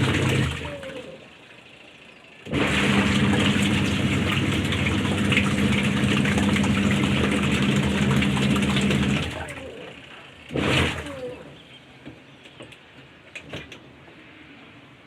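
Twin tub washing machine running, its motor humming under the noise of churning water; it stops about half a second in, starts again sharply a couple of seconds later and runs for about six seconds before winding down, followed by a brief loud burst of noise.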